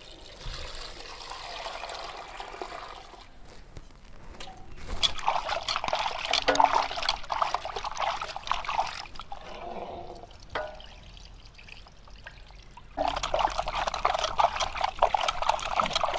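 Water poured into an aluminium pot of raw chicken pieces, then hands swishing and rubbing the chicken in the water to wash it. The splashing comes in two louder spells with a lull between.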